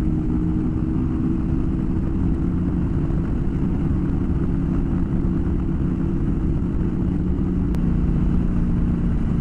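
Adventure motorcycle engine running at a steady speed on a loose dirt road, under a constant low rumble of wind and road noise. There is a single sharp tick about 8 seconds in.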